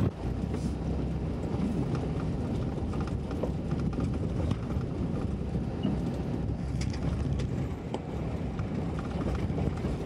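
Ford Bronco driving slowly over a rocky dirt trail: a steady low engine and tyre noise, with many small clicks and knocks from stones under the tyres.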